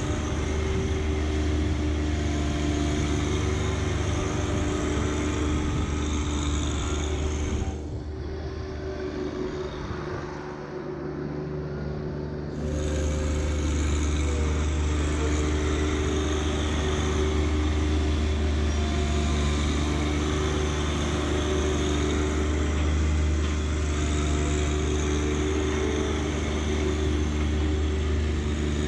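John Deere 1025R subcompact tractor's three-cylinder diesel engine running steadily. About eight seconds in the sound turns quieter and duller for about five seconds, then comes back at its former level.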